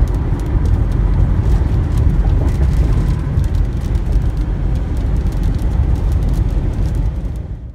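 Steady low rumble of road and engine noise heard inside a box truck's cab at highway speed, cutting off abruptly just before the end.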